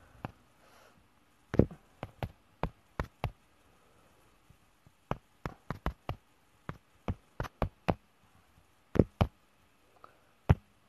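Irregular sharp taps and clicks close to the microphone, coming in small clusters with short quiet gaps between them.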